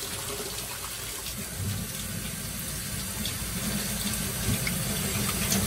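Kitchen faucet running into a stainless steel bowl of water and raw chicken pieces in a steel sink, a steady splashing that grows a little louder after about a second and a half.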